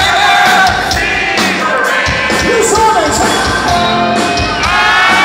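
Live rock band playing loud, with electric guitar and keyboards and singing.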